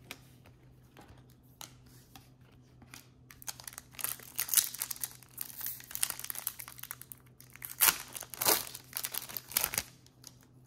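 A trading card pack's foil wrapper being torn open and crinkled by hand. It starts with faint handling ticks, then turns into dense crackling with several sharp, loud crackles from about four seconds in.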